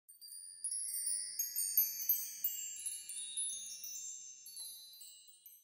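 Chime sound effect: many high, bell-like tinkling notes entering one after another and overlapping, then fading out gradually, used as a scene-change effect.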